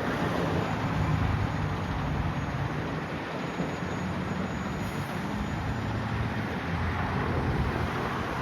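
Diesel engine of a 2016 Sutphen Monarch fire engine running, a steady low rumble with road noise.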